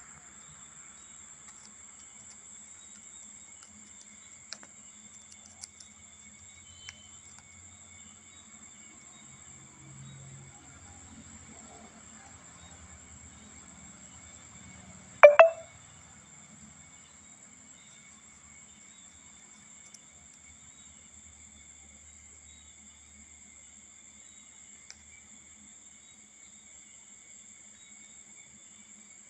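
Insects, crickets by the sound of it, trill steadily and high-pitched throughout. A few faint ticks come early, and about halfway through there is a single brief, sharp, loud sound.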